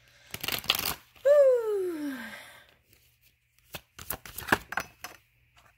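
A deck of tarot cards being shuffled: a quick riffle about half a second in, then a run of sharp snaps and clicks near the end. Between them, a drawn-out hum falls steadily in pitch for about a second.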